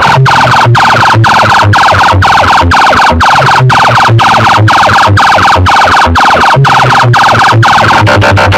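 A loud siren-like electronic wail from a competition DJ track played through a stacked wall of horn loudspeakers. The wail pulses about twice a second over a deep bass beat.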